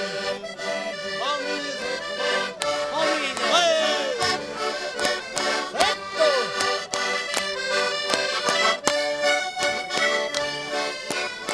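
Concertinas playing an instrumental interlude of a Portuguese folk song, steady reedy chords and melody between sung verses.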